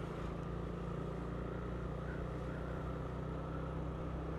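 Steady engine hum and road noise from a vehicle driving at an even pace.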